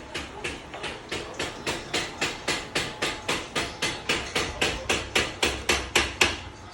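Rapid hammer blows, about four a second and growing louder toward the end, driving the pin into the rear joint of the shifter linkage to attach it.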